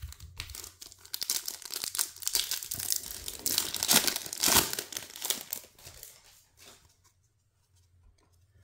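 Foil wrapper of a 2022 Topps Chrome baseball card pack being torn open and crinkled by hand, loudest about four seconds in. It dies away after about six seconds.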